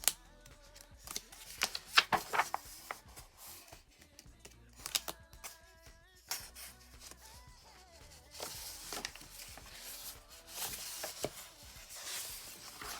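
Pages of a paper planner being flipped and handled: scattered light taps and clicks, then rustling page turns in the second half.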